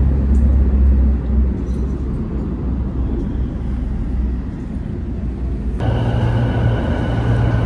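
Deep low rumble of a nearby road vehicle at the roadside, strongest in the first second and then easing off. About six seconds in it cuts abruptly to the steady hum and running noise inside a moving passenger vehicle.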